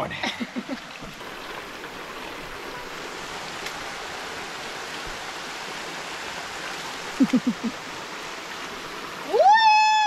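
Small waterfall and stream running into a pool, a steady rush of water. Near the end a woman gives a long, loud whoop that rises, holds and falls.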